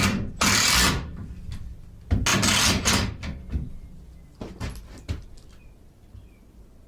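A cordless screw gun driving long square-drive screws into door-style hinges in two short bursts, the second longer, followed by a few light clicks and knocks.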